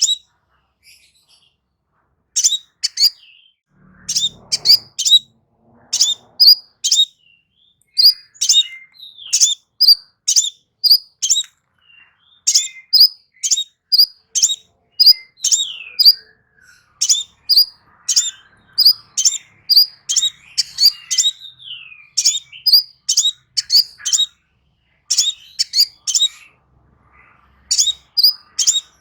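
Crimson sunbird singing: sharp, high chirps in quick clusters of two to four, with an occasional downward-sliding note and a brief pause about a second in.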